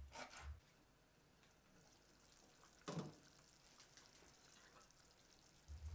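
Near silence, with a few faint taps of a knife on a wooden cutting board in the first half-second and one faint knock about three seconds in.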